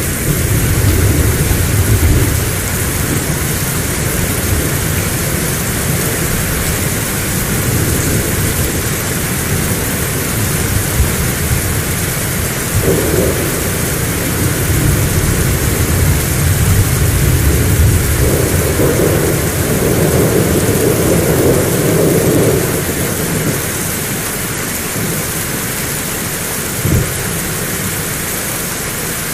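Heavy rain falling steadily, with thunder rumbling at the start and rolling again through the middle before dying away. A short thump comes near the end.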